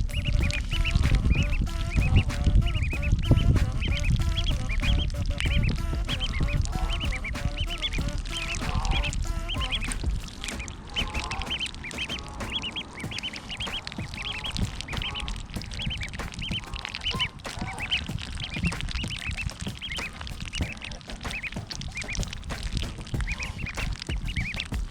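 A flock of ducks quacking, many short calls overlapping continuously. A low rumble runs under the calls for roughly the first ten seconds, then drops away.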